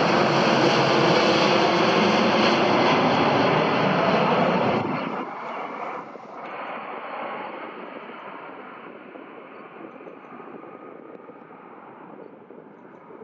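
Boeing 767-300ER freighter's two GE CF6-80C2B6 turbofan engines at approach power, passing low overhead with gear down. The jet roar is loud for about five seconds, then drops sharply and fades away as the aircraft recedes toward landing.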